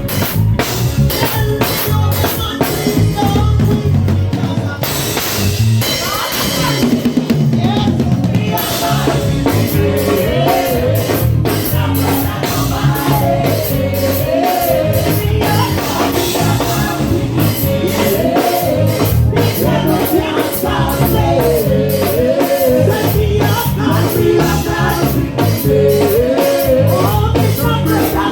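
Live worship band playing: a drum kit keeps a steady beat with bass and cymbals, and a singer's voice carries a wavering melody from about ten seconds in.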